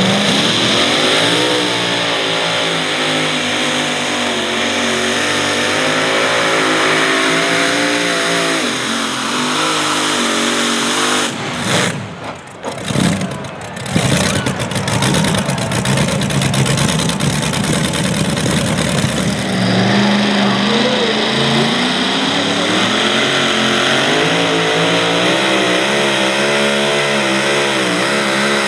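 Super modified two-wheel-drive pulling truck's engine running hard at full throttle under load. Its pitch wavers up and down as it pulls. The engine sound drops out briefly about twelve seconds in, then an engine climbs back up to full throttle.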